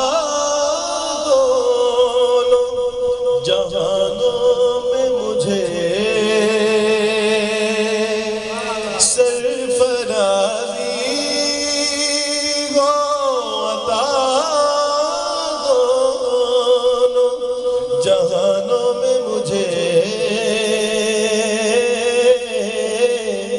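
A man singing a naat into a handheld microphone, drawing out long, wavering held notes with vibrato between the lines of verse.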